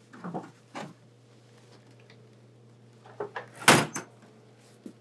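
A couple of faint movement sounds, then a few light knocks and one loud bang of a door shutting about three and a half seconds in, over a steady low hum.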